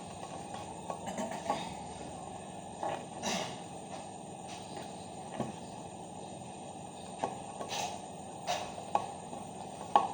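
Hands connecting a wire to a magnetic contactor's coil terminal: about ten scattered small clicks and rustles of handling the wire and terminal, over a steady hiss.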